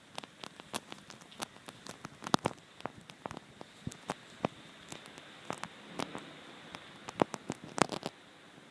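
A run of irregular small clicks and taps, some sharper than others, over a faint hiss.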